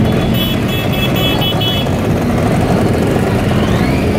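Scooters and motorcycles riding past in a procession, their engines running together in a steady mass. About half a second in, a quick string of about six short high beeps sounds over them.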